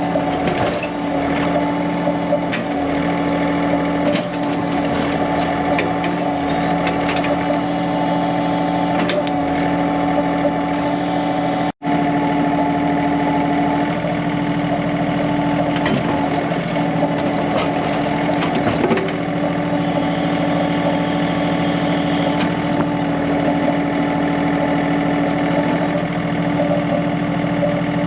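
John Deere 3039R compact tractor's three-cylinder diesel running at a steady speed as its 385A backhoe works, with scattered cracks and scrapes of wood and roots breaking.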